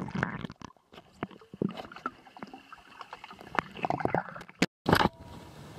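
Underwater pool sound picked up by a submerged camera: muffled, irregular bubbling clicks and knocks of moving water, with a brief dropout and a louder burst near the end.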